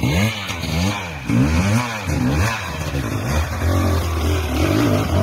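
Enduro dirt bike engine revved up and down in quick throttle blips, about two a second.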